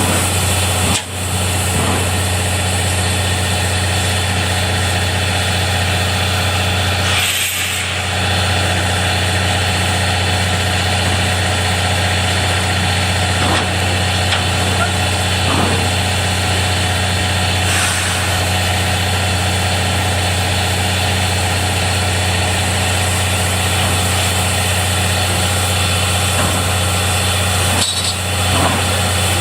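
A standing railway vehicle's engine idling with a steady low hum, with a short hiss about seven seconds in.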